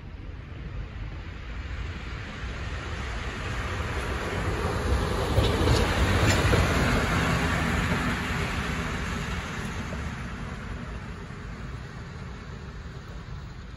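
EU07 electric locomotive running light through the station: its running noise builds, is loudest as it passes close about six seconds in, then fades as it moves away. A few sharp clicks of its wheels over the rail joints come as it passes.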